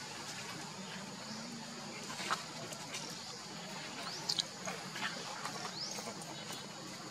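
A few very short, high-pitched rising chirps from an animal over a steady outdoor background, with some faint clicks.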